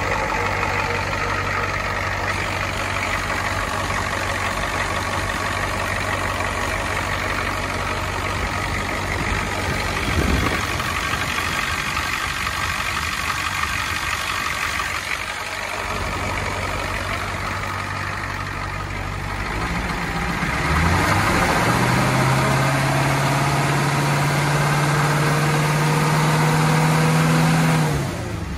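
1986 International T444 7.3-litre V8 diesel idling steadily, then revved up about two-thirds of the way through and held at a higher, louder speed before the revs drop away near the end.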